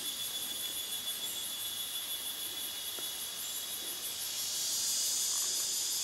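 Chorus of forest insects buzzing steadily in high-pitched tones with a fast pulsing trill on top. A second, louder buzz swells in about four and a half seconds in.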